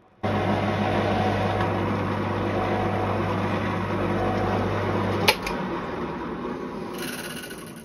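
Bench pillar drill running and drilling small holes in a phosphor bronze bearing, a steady motor hum under the cutting noise. About five seconds in a sharp click as the drill is switched off, and the hum stops while the spindle runs down and fades.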